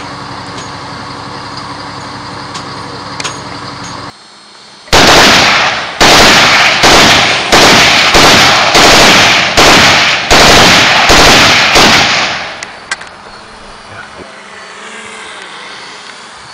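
Steady motor hum that cuts off abruptly, then about nine loud bursts of machine-gun fire in quick succession, each starting sharply and dying away, followed by a fainter hum.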